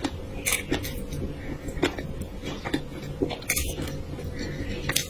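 Close-miked eating sounds: wet chewing with about seven short, sharp clicks of utensils against dishes.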